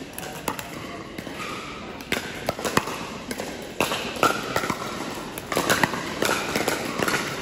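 Pickleball paddles striking a plastic ball during a rally, with ball bounces: a string of sharp pops that comes thicker in the second half.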